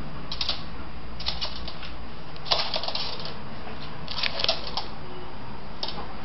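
Claws and paws of a puppy and a cat clicking and tapping on a hardwood floor in quick clusters of clicks as they scuffle, over a steady low hum.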